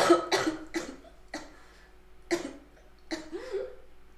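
A woman coughing in a fit of about six hard coughs, quick at first, then with longer gaps. She has a cold.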